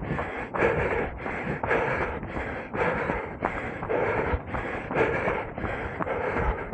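A runner's heavy, rhythmic breathing while running hard, puffing about twice a second.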